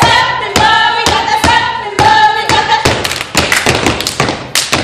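Step team stepping: boots stomping on a wooden stage and hands clapping and slapping in a fast rhythm, with voices chanting over it.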